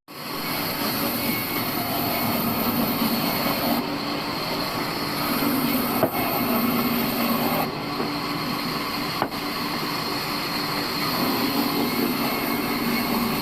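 Old bandsaw sawmill running: a loud, steady mechanical din with a high hiss that drops away and comes back several times.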